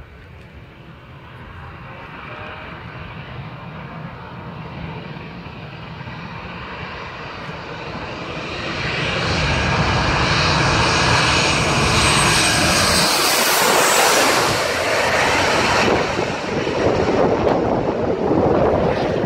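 Boeing 737 jetliner on final approach, its engine noise growing steadily louder as it passes low overhead, loudest with a high hiss about two thirds of the way in. After a short dip, the engine noise continues as a lower rumble while the plane rolls down the runway after touchdown.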